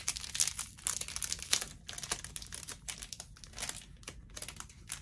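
Plastic packaging bag crinkling as it is handled, in many quick, irregular crackles.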